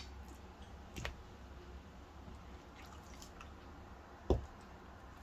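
Raw chicken legs being handled on a plate: a soft knock about a second in and a louder dull thump just past four seconds as a piece is set down, over a faint low hum.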